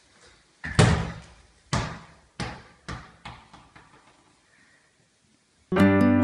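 A football dropped on a hardwood floor, bouncing about seven times, each bounce quieter and closer to the last as the ball settles. Acoustic guitar music begins near the end.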